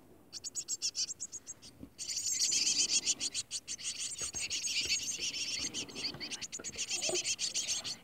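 Tit nestlings begging in the nest with a rapid, high-pitched chorus of calls. The calls are fainter at first and swell to a loud, continuous chorus about two seconds in.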